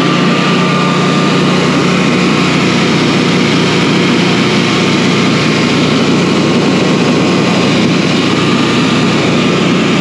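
Honeywell home standby generator's engine running loud and steady in manual mode. This is a test run to reproduce a low-oil-pressure shutdown, with the oil level fine and a bad oil pressure switch blamed.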